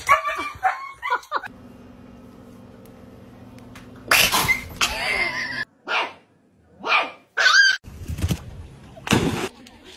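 A dog barking and yipping in several short bursts through the second half, after a steady low hum lasting a couple of seconds.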